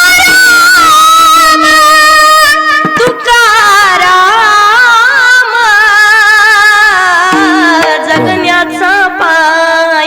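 A woman singing a Marathi devotional kirtan melody in long, ornamented held notes with a wavering vibrato, over a steady accompanying drone tone.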